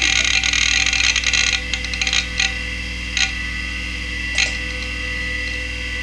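Quantum Bigfoot CY 5.25-inch hard drive spinning with a steady whine. Its heads chatter in a dense run of seeks for about the first second and a half, then give only a few separate seek clicks. The drive is failing, on its last legs.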